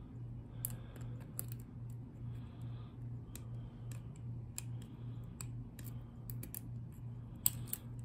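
Light metallic clicks and scrapes from a pick wire lifting the levers inside a lever padlock, at irregular intervals over a steady low hum.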